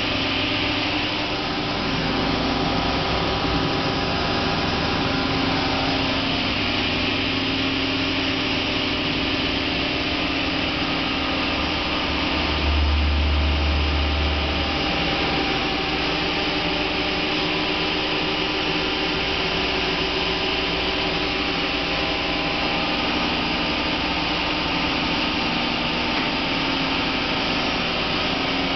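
Hardinge Quest 10/65SP CNC turning center running a program: a steady machine hum and whine with a hiss over it. About halfway through, a deeper hum swells for a couple of seconds.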